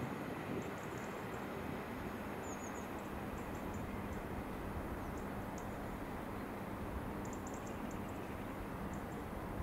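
Class 59 diesel locomotive's EMD two-stroke V16 engine running steadily as it pulls away, heard as a low rumble under a faint steady hum.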